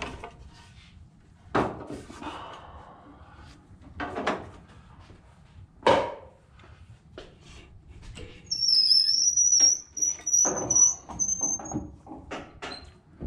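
Boat-lift spreader rig being taken down from overhead joists: a few separate knocks of wood and metal hardware, then a thin high squeal for about three seconds with light clattering.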